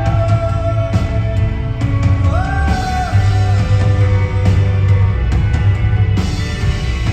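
Live rock band playing an instrumental passage: heavy bass and regular drum hits under sustained chords, with one note sliding up, holding, and falling back a little over two seconds in.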